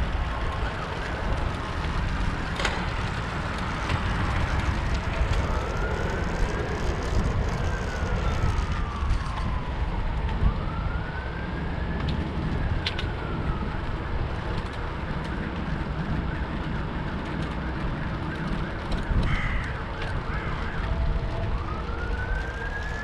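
An emergency-vehicle siren wailing, slow rising-and-falling sweeps heard twice and a third beginning near the end. It sits faintly under a steady low rush of wind on the microphone as the bicycle rolls along.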